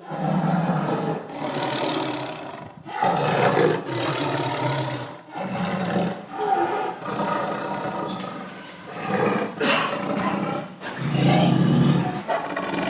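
Angry tiger roaring: a long run of loud, rough roars, one after another with only brief breaks between them.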